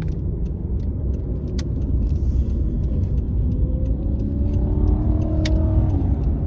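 Car cabin noise: a steady low road and engine rumble, with the engine note rising about two-thirds of the way through as the car picks up speed.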